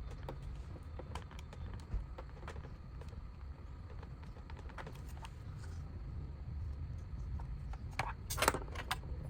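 Small scattered clicks and taps of tools and parts being handled while a Bluetooth speaker is taken apart, over a steady low hum. About eight seconds in there is a brief, louder run of rattling clicks.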